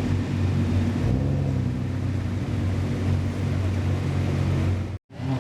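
Nissan GT-R R35 twin-turbo V6 exhaust running steadily at low revs, a deep drone with a slight change in pitch about a second in; it cuts off abruptly near the end.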